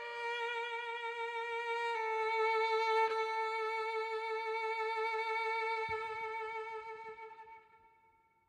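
Solo violin holding a long closing note with vibrato, dropping slightly in pitch about two seconds in, then fading away to silence near the end.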